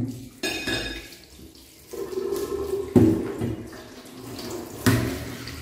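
Kitchen tap running water over a plastic cutting board being rinsed in a stainless steel sink, with a few sharp knocks as the board is handled against the sink.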